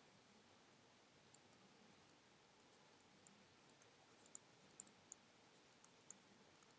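Near silence with faint, scattered clicks from a stylus tapping and writing on a pen tablet, a handful of them, most in the second half.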